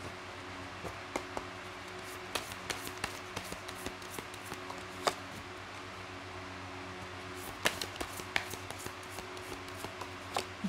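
Tarot cards being handled on a table: irregular soft clicks and taps as the cards are shuffled and laid out, over a faint steady hum.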